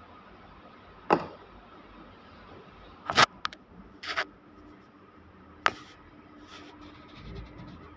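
A few sharp knocks and clicks of handling, the loudest a quick double knock about three seconds in, over a faint steady hum.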